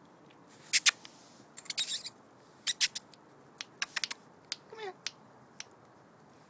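Uneven run of sharp tongue clicks and kissing smacks, the kind used to call a puppy, spread over about five seconds. Near the middle comes one short whimper that falls in pitch.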